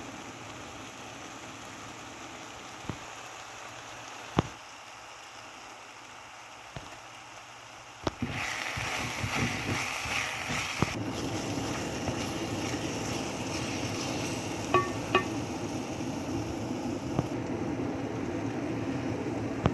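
Kitchen cooking sounds: a few sharp knocks of utensils, then about eight seconds in a louder, steady frying sizzle starts in the pan and carries on, with two ringing metal clinks later.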